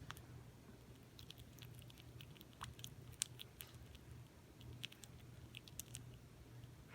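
Baby squirrel gnawing and chewing peanuts: faint, irregular little clicks and crunches.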